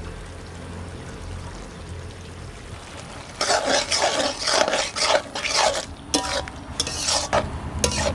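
Metal spatula stirring and scraping a pumpkin-leaf and potato curry around a metal kadai, mixing in ground poppy seed. The quick scraping strokes start about three and a half seconds in, after a quieter stretch.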